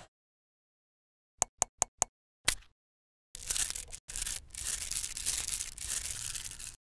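Five short clicks, then a dense, continuous rattle of many small metal magnetic balls being stirred and scooped up by hand in a wooden bowl, with a brief break partway through.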